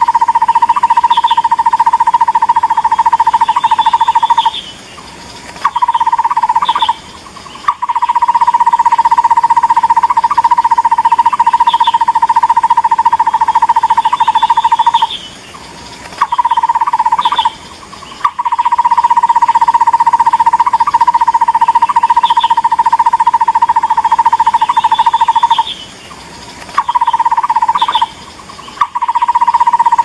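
Takur bukit barbet calling: long, rapid runs of repeated hollow notes, several seconds at a time, alternating with short runs and brief pauses. Faint higher chirps sound over the runs, and the whole sequence repeats about every ten seconds, as a looped bird-caller track.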